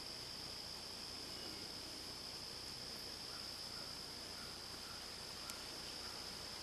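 Crickets trilling in one steady, high, unbroken drone of insect song, with a single faint click about five and a half seconds in.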